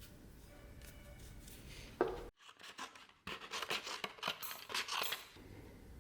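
Workshop hand-tool work: a sharp knock about two seconds in, then a run of quick, scratchy scraping strokes lasting about two seconds.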